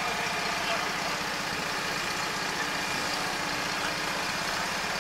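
An engine running steadily at idle, with an even low throb.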